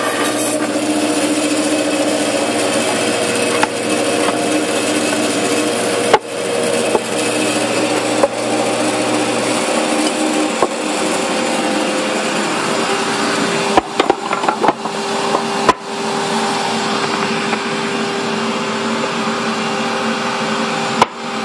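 Band saw running steadily as its blade cuts through the sides of a wooden box, separating the lid from the base. Several sharp knocks of wood come over the saw's noise, a bunch of them about two thirds of the way through and one more near the end.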